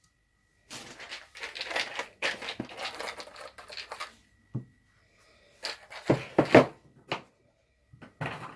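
Handling noise: a few seconds of scratchy rustling, then several light knocks, the loudest about six seconds in, as a brass rifle cartridge is stood upright on a tabletop.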